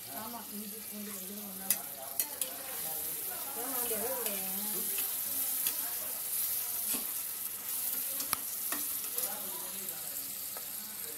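Sliced onions sizzling as they fry in oil in an aluminium pressure cooker, stirred with a perforated steel skimmer that clicks and scrapes against the pot several times.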